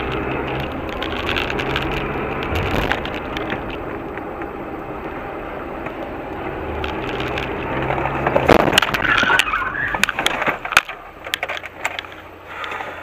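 Steady engine and road noise inside a moving car, then, about eight seconds in, a burst of loud crunching and cracking impacts: a car collision.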